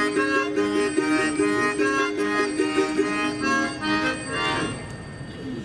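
Instrumental music: a melody over a repeating low two-note figure, fading out near the end.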